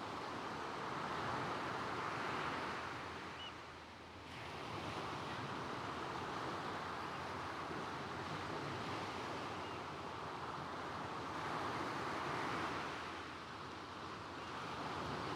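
Gentle waves washing in over a pebble beach, the water hissing across the stones as each surge swells and ebbs, with a dip about four seconds in and another near the end.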